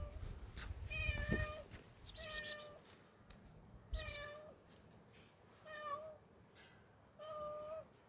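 A cat meowing five times, short even-pitched calls about every second and a half, with a few sharp clicks and knocks between them.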